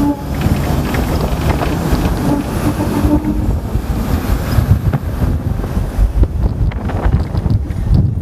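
Hong Kong double-decker tram running along its rails with a steady low rumble, wind buffeting the microphone, and a run of sharp rattling clicks in the second half.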